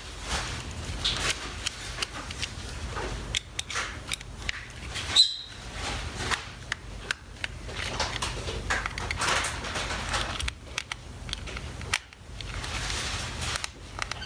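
Small screws being worked out of a plastic electric-shaver housing with a precision screwdriver: irregular small clicks and short scraping rustles of hand tools on plastic, with one sharp, louder click about five seconds in.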